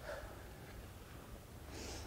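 Faint low background rumble, with a soft intake of breath near the end, just before someone starts to speak.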